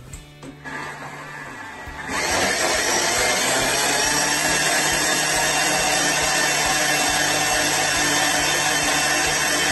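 Thermomix food processor: a few clicks as the lid and speed dial are set, then about two seconds in the motor starts and runs loud and steady, blending the ajo blanco mixture of soaked bread, almonds, oil, water and coconut milk.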